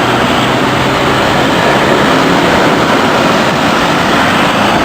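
Loud, steady rushing wind noise on the microphone while riding a bicycle along a road.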